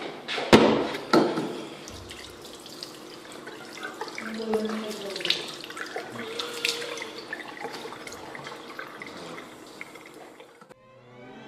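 Two loud bangs close together about half a second and a second in, then a tap running and water splashing into a sink, with small drips and knocks, until it stops suddenly near the end.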